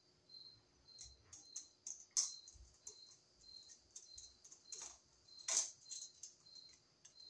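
Light metal clicks and ticks of a screwdriver turning the terminal screws of a three-way light switch, tightening the red and black traveler wires under the screw heads. The clicks come irregularly, with two sharper ones about two seconds in and near the end.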